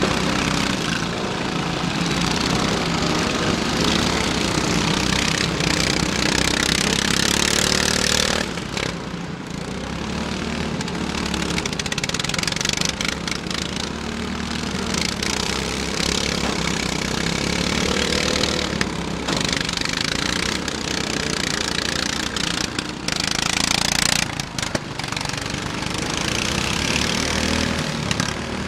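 Several riding lawn mower engines running together under load, their pitch rising and falling as they rev, as the mowers shove against one another.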